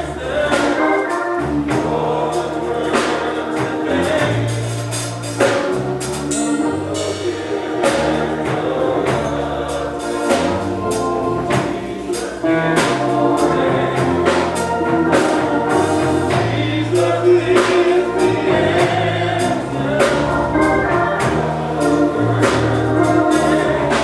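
Gospel choir singing over a band with bass and a steady beat.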